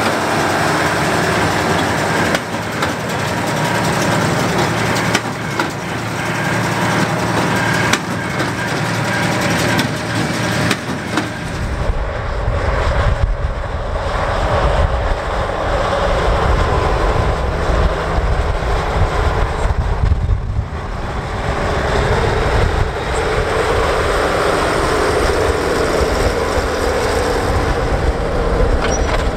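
Deutz-Allis 9170 tractor diesel engines working under load: first the green two-wheel-drive 9170 pulling a Hesston 4760 big square baler, then, after a cut about 11 seconds in, the orange front-wheel-assist 9170 pulling a 13-foot Lemken Heliodor disk, with a deeper engine sound.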